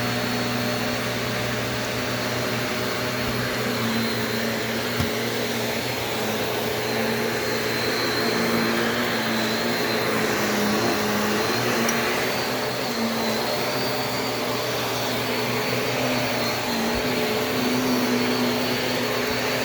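Shark Navigator DLX upright vacuum running steadily, its motor humming with a high whine that wavers slightly as the machine is worked back and forth.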